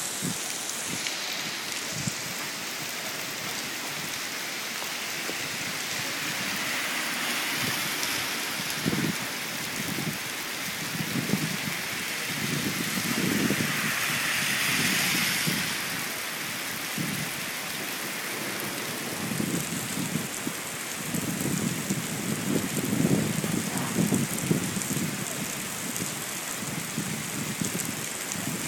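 Heavy rain pouring onto a wet street, a steady hiss, with a car's tyres swishing through the water on the road about halfway through. Low, irregular rumbling from gusts of wind comes and goes through the second half.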